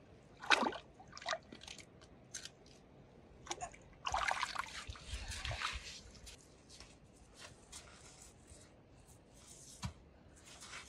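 Water splashing and sloshing as a hand works in a shallow stream and lifts a stone from it, with a sharp splash early on and a longer sloshing stretch about four seconds in. After that come scattered light knocks and scrapes, and near the end a dull thump as a stone is pressed into sand.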